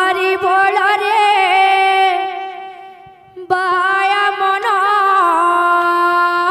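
A singer holds long, drawn-out notes of a Sambalpuri kirtan chant in two phrases. The first note wavers slightly and fades about three seconds in. The second begins half a second later and holds steady.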